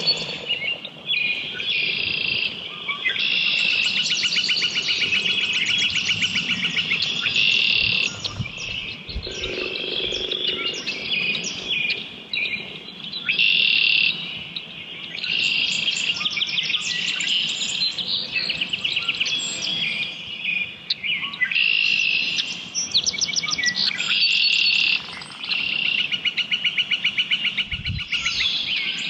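Morning bird chorus: several songbirds singing at once, with rapid repeated trills and chirped phrases overlapping almost without pause.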